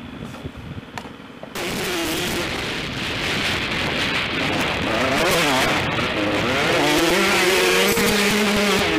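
Motocross dirt bike engine, quiet at first, then about a second and a half in it comes on loud and revs up and down repeatedly as the rider works the throttle and gears along the track.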